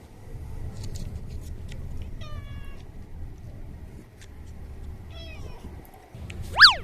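A cat meowing twice, two short calls about three seconds apart, over a low rumble. Just before the end comes a quick, loud sound that sweeps up in pitch and straight back down.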